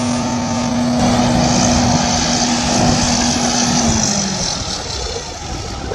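An engine running steadily, its pitch dropping slightly as it eases off about four seconds in.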